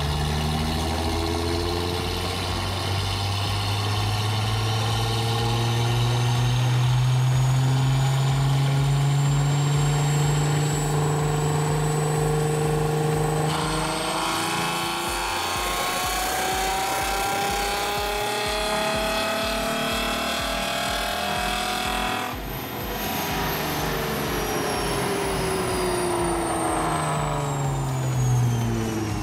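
Ford Mustang's engine making a dyno pull on a chassis dynamometer: the revs climb steadily for about thirteen seconds, change pitch abruptly and climb again until about 22 seconds in. Then the throttle is released and the revs wind down.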